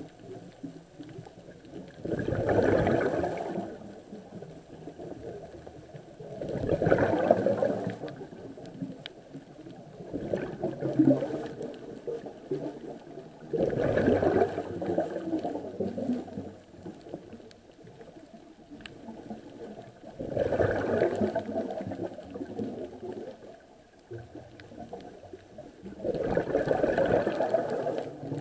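Scuba diver's exhaled bubbles gurgling out of the regulator, heard underwater, in about six bursts of a second or two each, several seconds apart, with quieter breathing noise between them.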